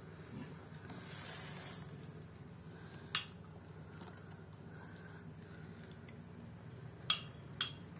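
A few light glassy clinks, once about three seconds in and twice close together near the end, as a silicone pastry brush knocks against a glass bowl of egg wash while dough rolls are glazed. A faint steady low hum runs underneath.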